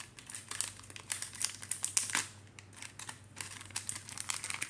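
Foil wrapper of a Pokémon card booster pack crinkling and crackling in irregular bursts as it is handled and worked open by hand; the packs are hard to open.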